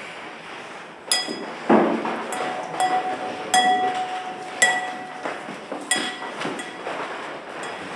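Bright metallic chinking strikes, several of them about a second apart, each ringing briefly, with a dull thump about two seconds in and one steady ringing tone held through the middle.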